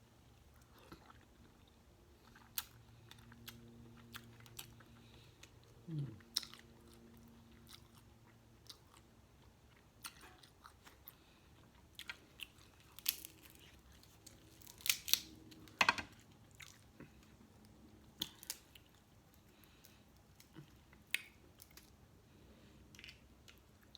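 Close-up eating sounds: chewing and mouth smacks with scattered sharp clicks and cracks, busiest about halfway through. A faint short low hum comes about six seconds in.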